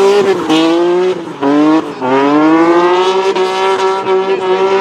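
BMW E30 engine revving at high rpm while the car drifts with its rear tyres spinning. The pitch dips sharply three times in the first two seconds, then climbs and holds high.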